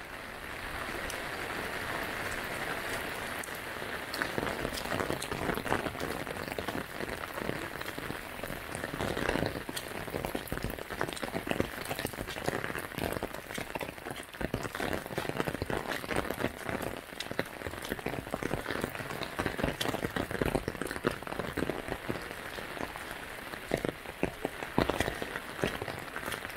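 Steady rain, with many drops striking in dense, irregular succession.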